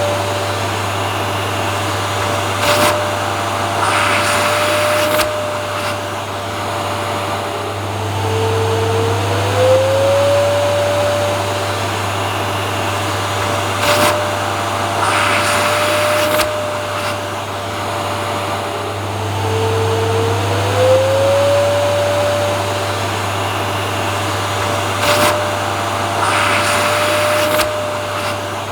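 Vacuum cleaner motor running steadily with a low hum and a whine. The whine dips and glides back up about every eleven seconds, and brief louder bursts of hiss come back on the same cycle, as in a looped recording.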